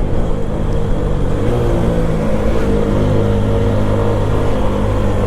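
TVS Apache single-cylinder motorcycle engine running under way, its pitch dipping and rising slightly as the throttle changes, with steady wind rush.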